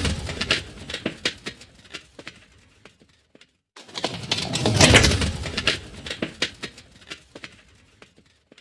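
Designed sound effect of a rusty futuristic speeder passing by: a swell of noise with rattling metallic clicks that peaks and fades away. The end of one pass dies out about three and a half seconds in, and a second pass builds to its loudest about five seconds in, then trails off in scattered clicks.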